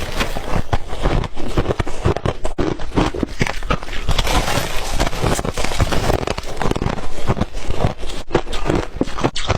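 Close-up crunching of white ice being bitten and chewed, a dense run of loud, irregular cracks and crackles.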